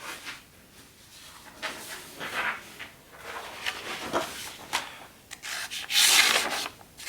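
Paper rustling and scraping in several strokes as the Leatherman Wave's plain-edge knife blade is drawn through it, loudest near the end. The blade drags rather than slicing cleanly, a test of its edge that comes out not great.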